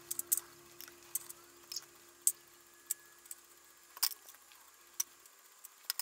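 Small metal clock parts clinking against each other and the plastic tub as they are stirred by hand in a cleaning bath: sharp, irregular clicks, a dozen or so.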